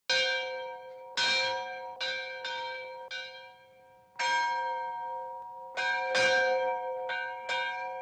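A bell struck about ten times at an uneven pace, each stroke ringing on and slowly fading, with a short lull near the middle.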